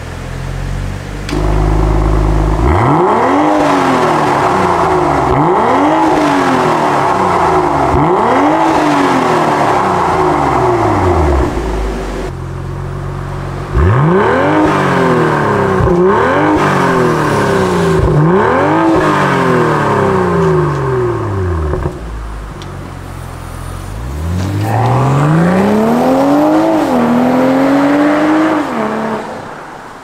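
BMW M340i's B58 turbocharged inline-six revved through a Fi Exhaust valvetronic catback, each blip rising and falling quickly. There are two sets of about four revs with a short lull between them, then one long pull that climbs, dips once at a gear change, climbs again and dies away about a second before the end.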